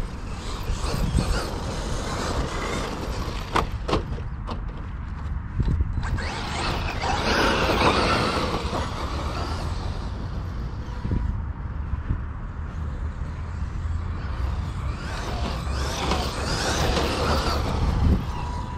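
Wind buffeting the camera microphone in a steady low rumble, with two longer, louder hissing swells about six and fifteen seconds in and a few sharp clicks a few seconds in.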